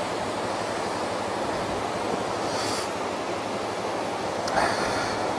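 Heavy water flow rushing down a dam's concrete spillway as steady whitewater noise: some serious flow.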